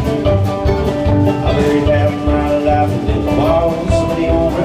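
Live bluegrass band playing at full volume: banjo, mandolin, acoustic guitar, upright bass and electric guitar over a steady, driving beat.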